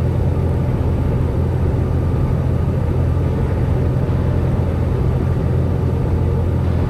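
Semi-truck's diesel engine and road noise droning steadily, heard from inside the cab while driving.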